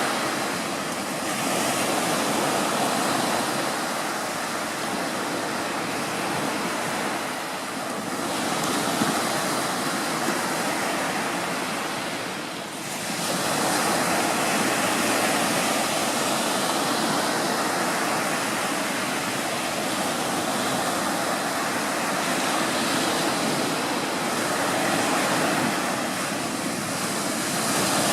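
Small waves breaking and washing on a beach: a steady rush of surf that swells and eases, with a brief lull about halfway through.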